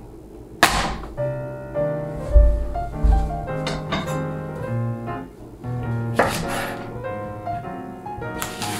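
Background music playing a melody, with a few sharp knocks on a wooden cutting board.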